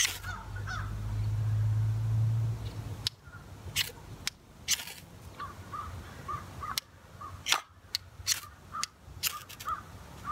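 A crow cawing over and over in short calls, about two a second, through the second half, with scattered sharp clicks as the biofuel can stove is being lit. A low rumble fills the first few seconds.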